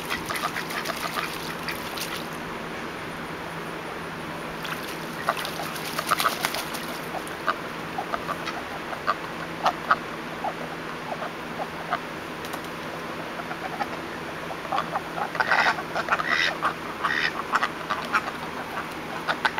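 White domestic ducks quacking in short, scattered calls, getting busier and louder near the end.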